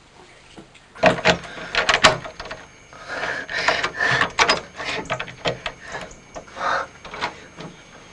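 Metal handle and lock of a wooden door being worked by hand: irregular clicks, rattles and knocks, with scraping between them, starting about a second in.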